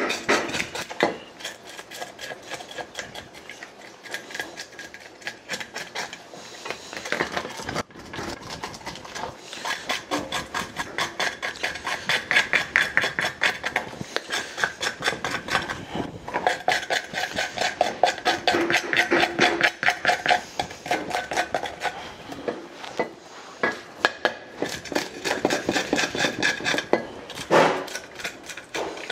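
Metal blade scraping scales off a sea bream's head and frame on a plastic cutting board, in rapid rasping strokes several a second.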